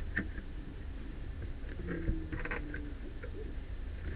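Cardboard packaging being opened and a plastic-wrapped unit lifted out of it: scattered rustles, scrapes and small knocks, with a quick cluster of clicks about two seconds in, over a steady low hum.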